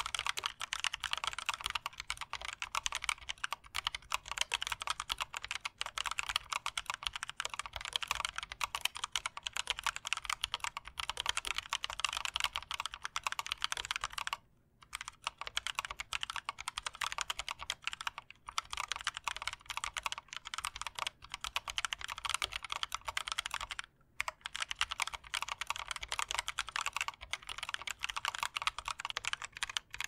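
Continuous typing on a Keychron K1 v4 low-profile mechanical keyboard with Gateron low-profile brown tactile switches: a dense, even run of keystroke clacks, broken by two short pauses, about halfway through and again about 24 seconds in.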